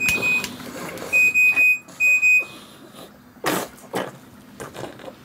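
Pulse oximeter alarm beeping: three high, single-pitched beeps of about half a second each in the first two and a half seconds. The alarm warns of low oxygen saturation, at 79 % where it should be near 100. A few short, fainter noises follow.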